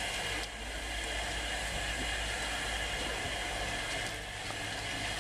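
LNER Class A4 steam locomotive standing at the platform, giving off a steady hiss of steam over a low rumble.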